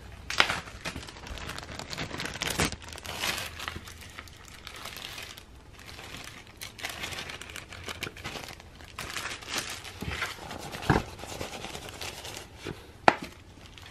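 Clear plastic food bag crinkling as it is handled and opened, with a few sharp taps as raw cat food nuggets drop onto a paper plate.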